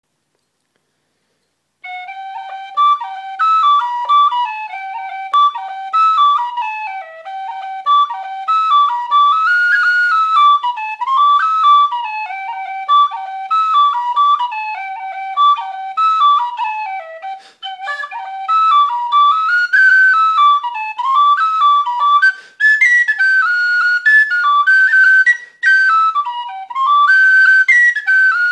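Tin whistle playing a fast Irish jig, a quick run of single notes with no accompaniment. It starts about two seconds in and climbs to higher notes in the last few seconds.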